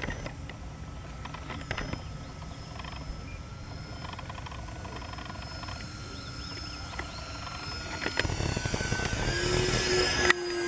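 Twin motors of a radio-controlled model Twin Otter plane, running steadily and faintly at first, then growing louder with a whine that sweeps up and down in pitch as the plane passes close overhead. The sound cuts off abruptly just before the end.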